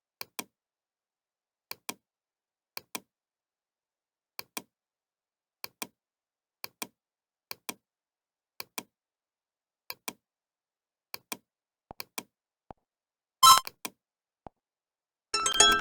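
Computer mouse clicking, each click a quick press-and-release pair, about once a second. A short electronic notification blip sounds about two-thirds of the way through, and another Android notification tone begins right at the end.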